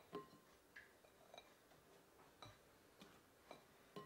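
Faint, irregular small clicks and light clinks, about two a second, as syrup-soaked makroud pastries are handled in a glass bowl.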